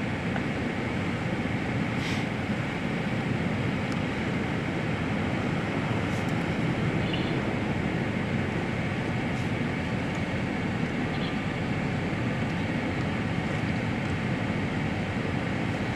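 Steady low rumble of a running vehicle engine, with a few faint ticks.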